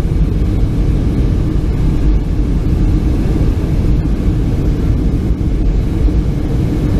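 Airliner cabin noise in flight: a loud, steady roar of engines and rushing air with a low rumble and a steady hum.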